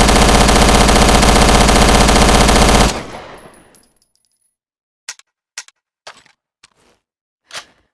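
Thompson submachine gun firing one long continuous burst that stops about three seconds in, leaving a ringing tail that fades within a second. A few seconds later come five short, sharp clicks spaced half a second to a second apart.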